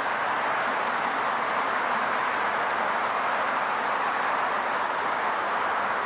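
Steady city street ambience: an even, continuous rush of traffic noise with no single vehicle or event standing out.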